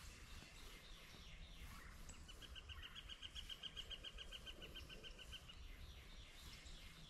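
A bird's trill: a quick, even run of short high chirps, about seven a second, lasting about three seconds, starting about two seconds in. Faint outdoor hiss lies underneath.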